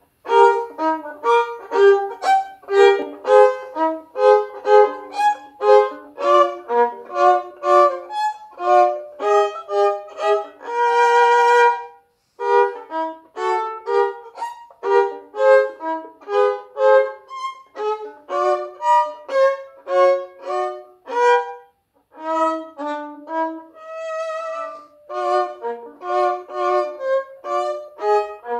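Solo violin playing a lively tune in quick, separate bowed notes, with a long held note with vibrato about eleven seconds in and another near twenty-four seconds. The playing stops briefly twice, around twelve and twenty-two seconds in.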